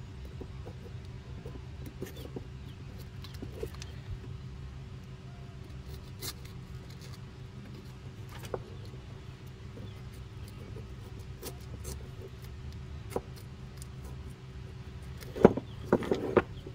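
Hobby knife trimming blue painter's tape on a metal master cylinder body, making faint scattered ticks and scrapes over a steady low hum. Near the end the tape is pressed and folded by hand, giving a short run of louder crinkling clicks.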